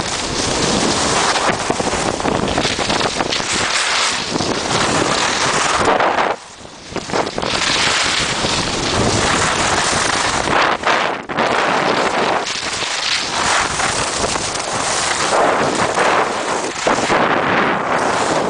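Rushing wind buffeting the camera microphone of a skier skiing downhill, mixed with the hiss of skis sliding on packed snow. It drops out briefly about six seconds in.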